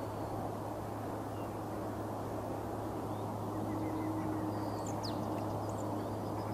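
Steady distant airport rumble with a low hum, and a few faint bird chirps about five seconds in.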